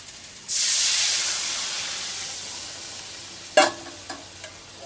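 Water poured into a hot pan of frying fish and mustard-and-chilli spice paste: a sudden loud sizzle about half a second in that slowly dies away as the water heats. Near the end, a sharp ringing clink of a utensil on the pan.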